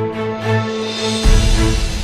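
Background music: held notes over a bass that pulses about twice a second. Just past halfway a deep bass hit and a rushing wash come in.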